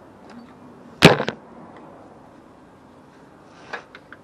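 A spanner knocks sharply against metal in a van's engine bay about a second in, followed by a couple of quieter knocks, then a few faint clicks near the end.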